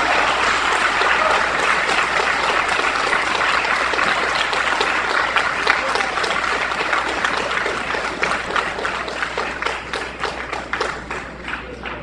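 A congregation applauding. It is dense at first, then thins into scattered individual claps and fades toward the end.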